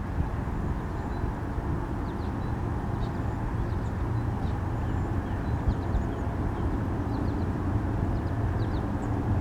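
Steady low outdoor rumble, with faint thin high bird calls scattered through it.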